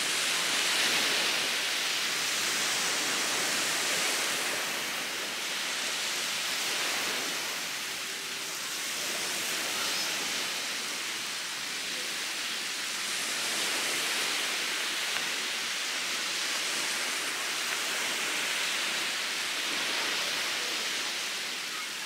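Steady hiss of surf washing onto a sandy beach, swelling and easing every few seconds.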